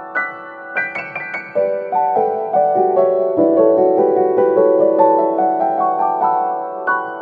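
Soft, slow piano music: single notes and chords, with a run of notes stepping downward through the middle.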